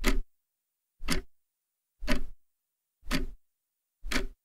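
Countdown timer sound effect: five clock-like ticks, one a second.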